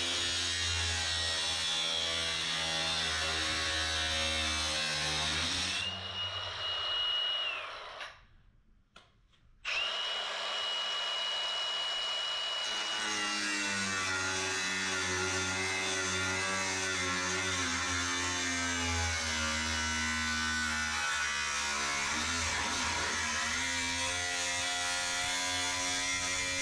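Angle grinder working steel. The motor labours under load, rises to a high free-spinning whine about six seconds in, and stops for a second or two. It spins back up to the same high whine and drops in pitch again as it is pressed back into the work.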